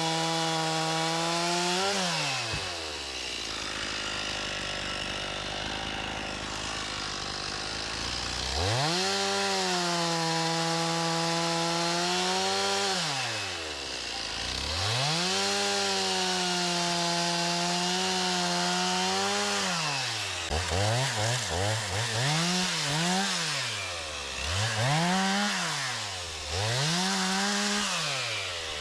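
Stihl MS 391 two-stroke chainsaw cutting firewood, run up to full throttle and dropped back to idle several times, with a quick run of short throttle blips about twenty seconds in.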